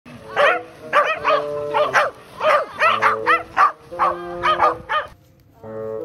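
Welsh corgis barking: about a dozen short, sharp barks in quick succession that stop about five seconds in. Background music with held notes plays underneath and comes up near the end.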